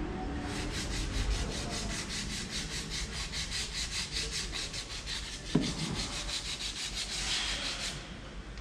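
Fast back-and-forth scraping or rubbing strokes, about five a second, that stop abruptly near the end, with a single knock about five and a half seconds in.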